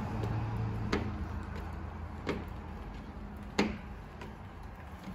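Plastic squeegee working two layers of window tint film against a glass pane, pushing the water out from between the layers: three short sharp clicks about a second and a half apart over a steady low hum.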